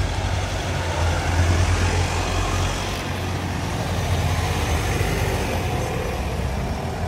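A road vehicle's engine running steadily, a continuous low rumble with street noise over it.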